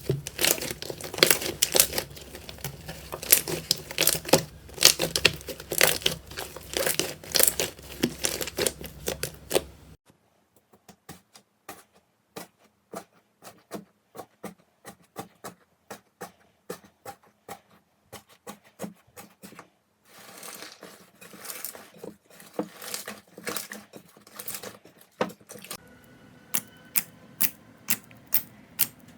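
Slime being squeezed and pressed by hand, giving dense crackling and popping clicks. About ten seconds in it changes to sparser single sharp clicks, two or three a second, with little between them. Around twenty seconds in a new run of clicks and crackles begins.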